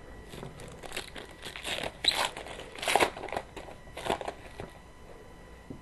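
Crinkling and rustling of trading-card packaging being handled, in a run of short, irregular bursts that die away about four and a half seconds in.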